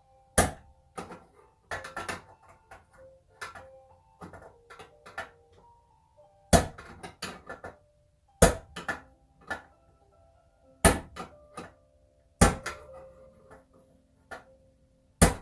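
Hammer blows on a long steel socket extension, driving a snug-fitting headset cup out of a bicycle frame's head tube. About a dozen sharp metallic strikes, singly or two or three in quick succession, each leaving the frame ringing.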